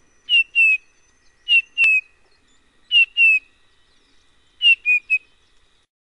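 Grey-headed bullfinch calling: short, clear, downslurred whistles given in pairs three times, then a group of three near the end.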